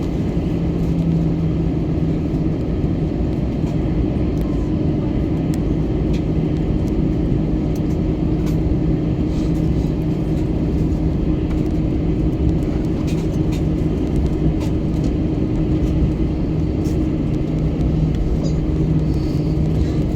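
Airbus A321 cabin noise on the ground before takeoff: a steady rumble with a constant low hum from the engines running at low power, unchanged throughout, with a few faint clicks.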